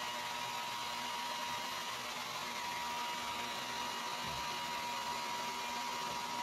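Handheld hair dryer running steadily, blowing on a dog's wet fur: an even rush of air with a steady high whine from the motor.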